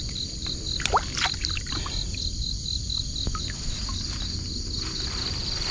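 Splashing and rustling of wet grass as a frog is hauled out of a pond on a fishing line, over a steady pulsing insect trill.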